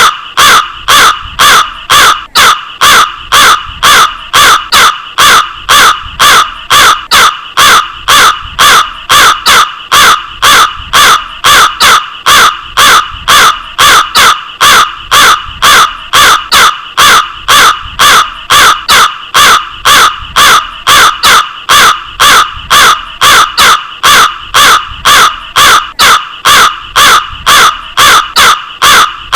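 A crow cawing over and over, short loud caws evenly spaced at about two to three a second without a break.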